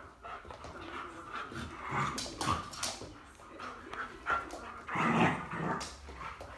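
Rhodesian Ridgeback playing, making short irregular vocal sounds mixed with clicks and knocks, loudest about five seconds in.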